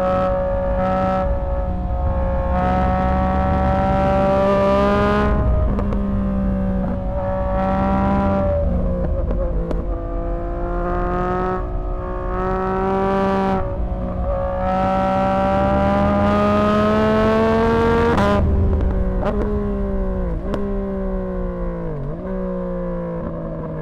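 Yamaha MT-09's three-cylinder engine through a Dominator HP6 aftermarket exhaust, accelerating hard at full throttle. Its pitch climbs and drops briefly at each of several upshifts. From about 18 s in come quick throttle-blipped downshifts with a few pops, and the engine note falls as the bike slows.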